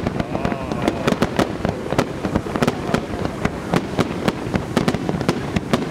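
Aerial fireworks display: a dense, irregular run of shell bursts and crackling bangs, several a second, over a constant rumble.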